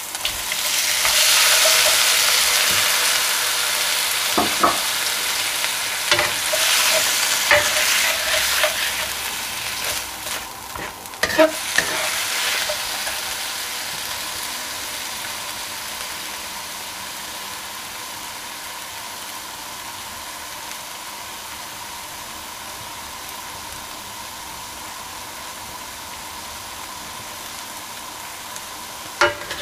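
Raw peeled prawns sizzling in hot oil in a wok, loudest just after they go in and fading to a steadier, quieter sizzle over the following seconds. A spatula knocks and scrapes against the wok a few times as they are stirred.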